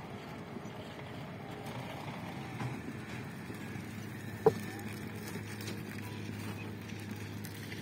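A concrete mixer's engine running with a steady low hum, and one sharp knock about four and a half seconds in.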